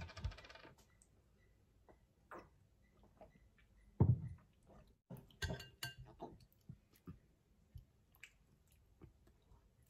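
Close-miked eating and tableware sounds: scattered clicks and clinks of a glass bottle and a spoon against a glass bowl, with soft chewing. A brief fast clicking right at the start, a louder low knock about four seconds in, and a cluster of clinks a little later.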